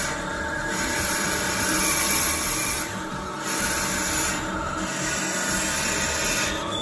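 Centre lathe running while a twist drill cuts a blind hole in the spinning metal workpiece: a steady machine hum under a hissing, scraping cut. The cutting sound breaks off briefly about three times as the drill is backed out a little to let the chips escape.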